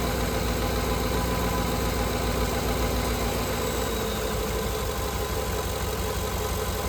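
2010 Ford F-150's V8 engine idling steadily after a jump start. It is running on a freshly replaced alternator, which is charging normally.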